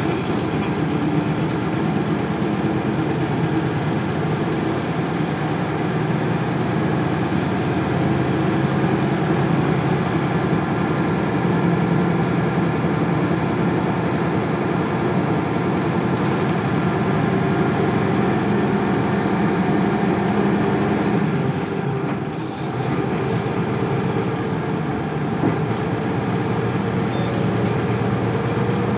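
1998 Isuzu Cubic KC-LV380L city bus's 8PE1 V8 diesel engine running steadily. The level dips briefly about three quarters of the way through, and the engine note rises slowly near the end.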